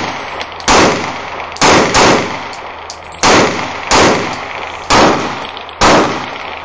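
Six pistol shots fired at uneven intervals, roughly one a second, each a sharp crack that rings off briefly.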